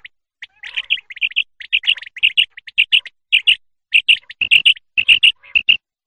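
Common quail calling: a steady run of short, high chirps, mostly in quick pairs.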